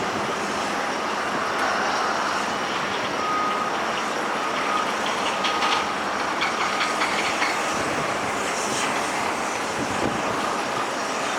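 Steady airport apron noise from aircraft engines and ground vehicles, with faint short beeps, like a vehicle's reversing alarm, a few seconds in.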